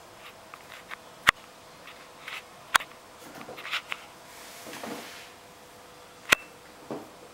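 A chinchilla scrambling over a plastic mop bucket on its side: three sharp clicks as its feet land on the hard plastic, with soft scratching and rustling in between.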